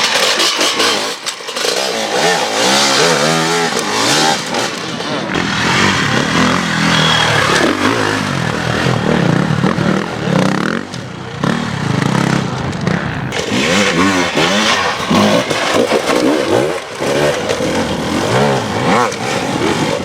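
Enduro motorcycle engines revving hard in repeated bursts, the pitch climbing and dropping again and again as riders work the throttle through a rough extreme-test section.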